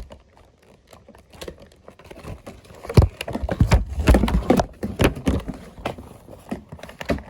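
A toy box's packaging being handled and opened by hand: a run of irregular clicks, knocks and rustles starting about three seconds in.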